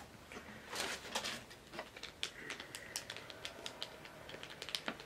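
Small clear plastic bag being handled, a run of light, quick crinkles and clicks, with one sharper click near the end.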